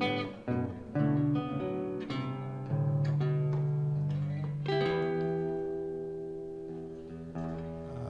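Live instrumental passage on acoustic guitar, electric guitar and acoustic bass guitar: picked notes, then a chord struck about five seconds in and left ringing as it slowly fades.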